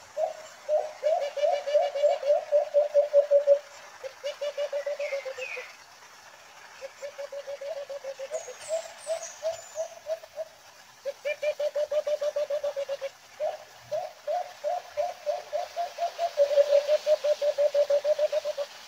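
White-eared brown dove (alimokon) calling from a cage trap: several long runs of quick, low hooting notes, about five or six a second, with short pauses between runs. It is a young decoy bird calling to lure wild doves.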